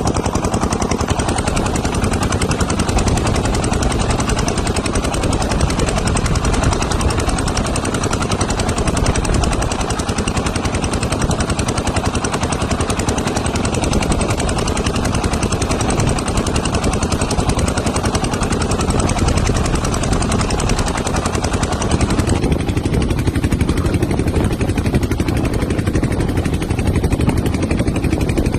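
A small boat's engine running steadily with a rapid chugging pulse, mixed with wind noise; the higher part of the sound drops away about 22 seconds in.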